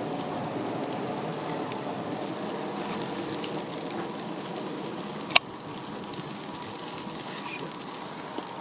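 Meat sizzling on a barbecue grill, a steady hiss, with one sharp tap about five seconds in.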